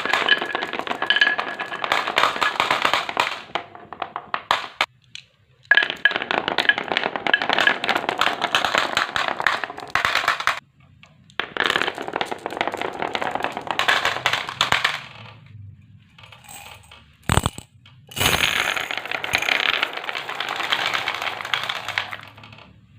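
Marbles rolling and clattering down a HABA wooden marble run in four long runs of dense rapid clicks, with short breaks between them. A sharp single knock comes a little after halfway.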